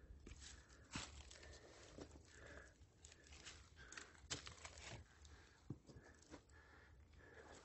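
Faint footsteps on a trail: irregular soft crunches and scuffs about a second apart, over a very quiet background.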